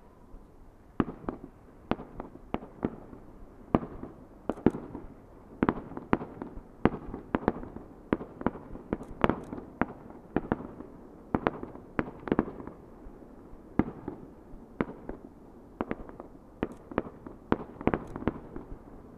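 Aerial firework shells bursting in an irregular rapid series, sharp bangs about two a second, each trailing off in a short echo.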